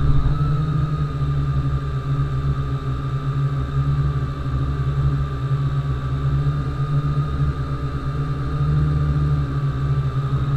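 MJX X101 quadcopter drone's motors and propellers running with a steady high whine over a heavy low rumble, holding constant speed in flight after spinning up.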